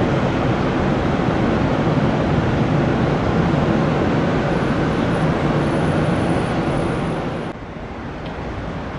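Jet airliner engines running loud and steady, with a faint high whine through the middle. The sound drops off suddenly about seven and a half seconds in.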